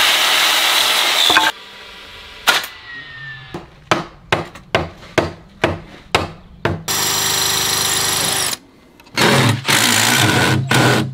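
Woodworking sounds one after another: a circular saw cutting through a wooden board, then a quick run of about eight hammer blows, then a power drill whining as it drives screws into the wooden form, twice.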